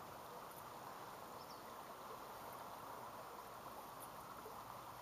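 Faint, steady rush of a shallow river running over a rocky bed.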